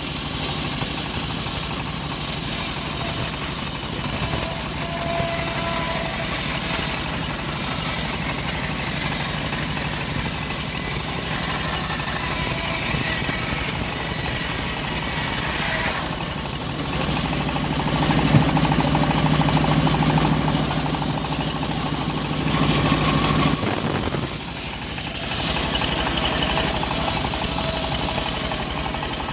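Engine-driven homemade bandsaw mill running steadily while sawing teak. A deeper, louder hum comes in a little past halfway and stops shortly before the end.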